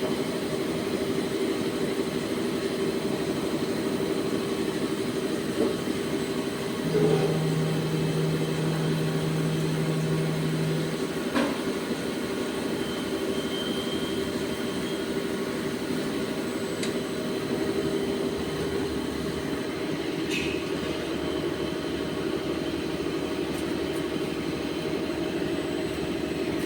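CNC turning machine running with a steady hum and several held tones. A deeper tone joins from about seven to eleven seconds in, and there are a few short clicks.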